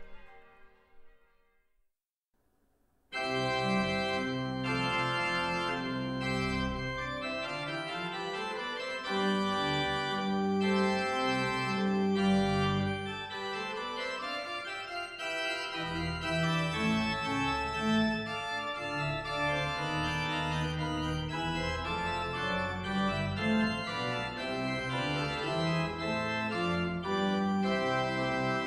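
Church bells fading out, then after a moment of near silence a church organ starts about three seconds in and plays full sustained chords over a deep bass.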